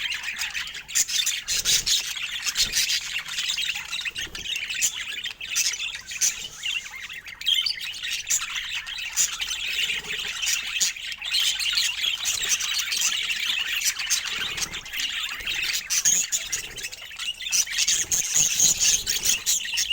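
Budgies chattering, chirping and squawking without a break, the busy warble of pet budgerigars.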